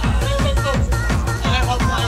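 Techno DJ set played loud over a club sound system: a steady four-on-the-floor kick drum a little over twice a second, with a pitched synth line over it.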